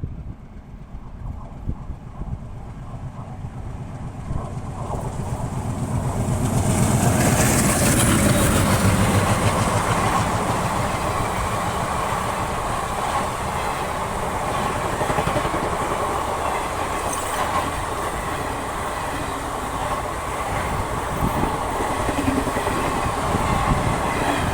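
Passenger train hauled by twin ALCO diesel locomotives approaching and going past, growing louder and loudest about seven to nine seconds in, then the coaches rolling by with a steady rumble of wheels on the rails.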